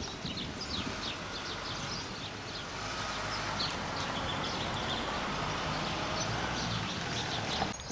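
Birds chirping: many short, high, downward-sliding chirps, several a second, over a steady rushing background noise.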